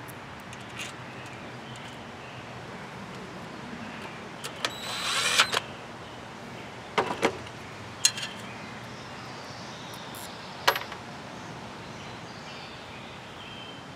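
Work on a lawn tractor engine's stator: a short mechanical buzz about five seconds in, then a few sharp metallic clicks of tools and parts being handled, over a steady background hiss.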